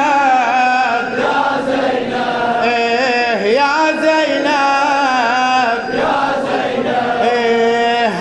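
Male chanter singing a Shia Muharram lamentation (latmiya) through a loudspeaker system, with long, wavering, wordless held notes that bend and slide between pitches.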